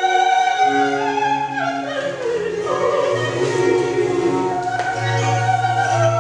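Slow operatic-style music with long held notes and a singing voice, its pitch sweeping down and back up about two seconds in.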